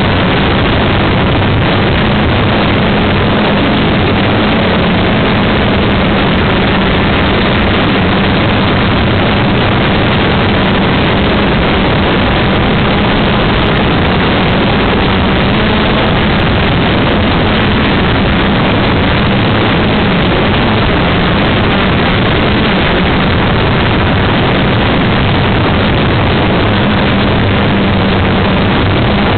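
A quadcopter's four electric motors and propellers running steadily, heard through the camera on the craft itself: a loud, even whirring hum.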